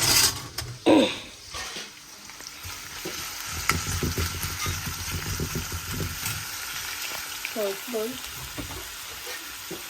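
Onions frying and sizzling in hot oil in a pan while being stirred, with irregular knocks of the utensil against the pan. There is a sharp clatter right at the start.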